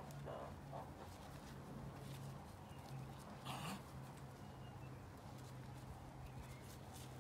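Faint sounds of a cat and a meerkat wrestling on sandy ground: a few soft scuffles and one short hissy burst about halfway through, over a steady low hum.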